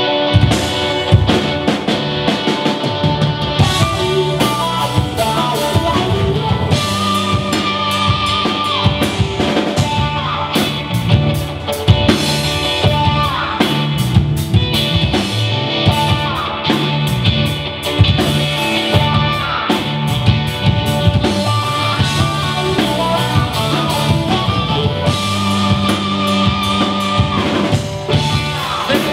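Live rock band playing a loud instrumental passage on two electric guitars, electric bass and drum kit, with the drums coming in right at the start.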